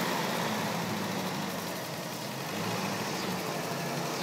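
1975 Toyota Hilux engine running and revved lightly, its pitch rising and falling gently a couple of times.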